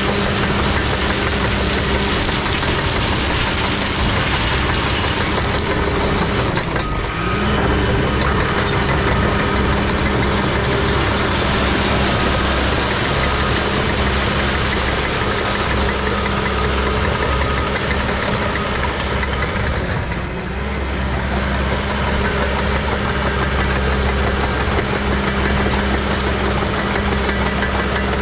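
Straw blower's engine running steadily with a constant drone, dipping briefly twice, about seven and twenty seconds in.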